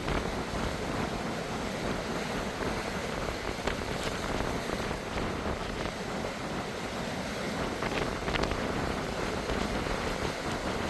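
Strong wind buffeting the microphone, with a steady wash of sea behind it and a few faint clicks.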